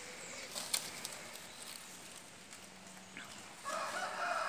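A rooster crowing once: a long, drawn-out call that starts near the end. It is preceded by faint rustling and a couple of light clicks.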